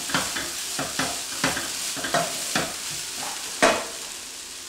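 Cabbage and brown rice sizzling as they fry in a skillet, stirred with a wooden spatula in scraping strokes about every half second. A louder knock of the spatula against the pan comes a little after three and a half seconds in, then the sizzle carries on alone.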